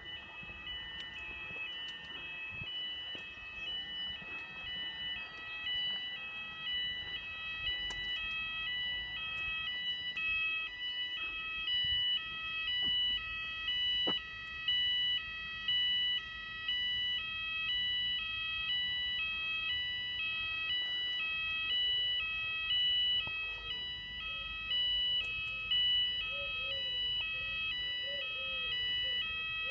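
Fire alarm sounders on test: Symphoni weatherproof sounder-beacons on a Cooper Fulleon addressable system, sounding a continuous two-tone alarm whose pitch swaps about every half second, getting louder about halfway through.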